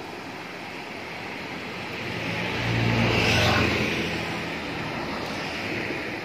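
Stream water rushing over a low weir in a steady wash. About two and a half seconds in, a louder rush with a low rumble swells up and fades again.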